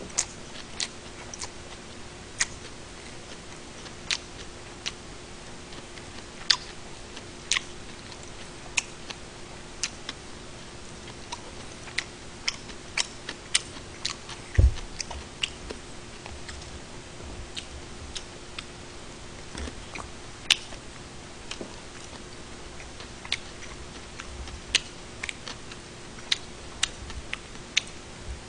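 Scattered short, sharp clicks at irregular intervals over a faint steady hum, with one dull thump about halfway through.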